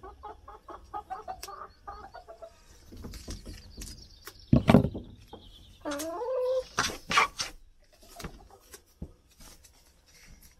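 A domestic hen clucking close by: a run of soft, quick clucks over the first couple of seconds, then a louder drawn-out call about six seconds in. Sharp rustles and tearing sounds come from sticky tape being pulled off its roll and cut, loudest about five and seven seconds in.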